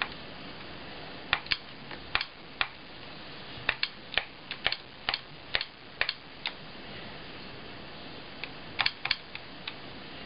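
Stylus tapping on the touchscreen of a Sharp Mobilion HC-4500 handheld PC: a quick string of sharp clicks from about a second in to past the middle, then a few more near the end.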